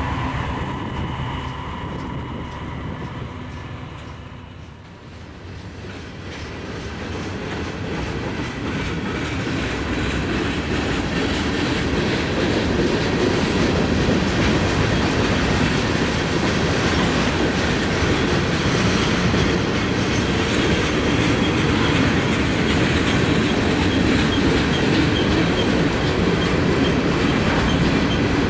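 Freight train rolling past close by: a steady rumble of wheels with rapid clicking over the rail joints. The train's horn tones fade in the first few seconds, the sound dips about five seconds in, then builds and stays loud.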